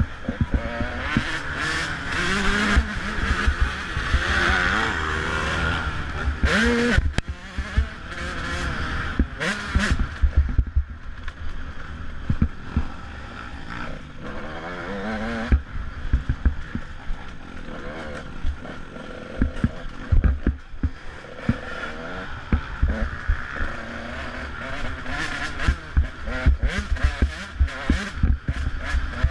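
Enduro dirt bike engine revving up and down as the bike is ridden hard along a rough dirt trail, heard from a helmet-mounted camera, with frequent knocks, rattles and buffeting from the bumps.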